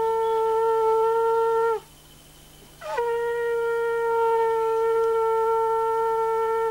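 Conch shell (shankha) blown in long, steady single-note blasts, the auspicious sound of a Hindu wedding rite. The first blast falls in pitch and stops just under two seconds in. After about a second's pause, a second blast starts and is held.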